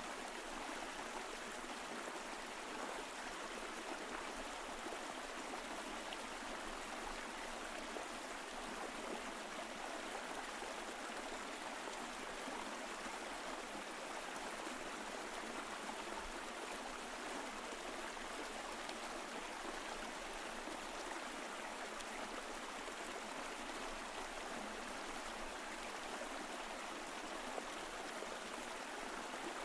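Mountain stream flowing over rocks: a steady, even rush of running water with gurgling.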